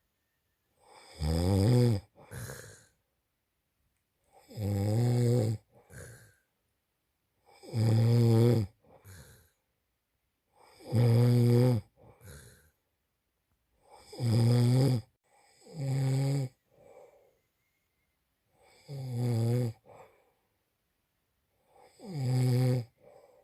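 A man snoring in his sleep: seven loud snores at a regular pace of about one every three seconds, each a deep pitched rasp, most with a softer second breath sound just after.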